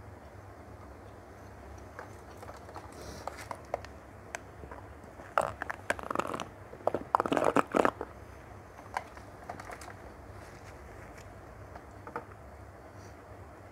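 Close-up eating sounds: small wet clicks of chewing and fingers working rice, then, about five seconds in, a loud couple of seconds of sucking a cold drink up a straw from a plastic cup.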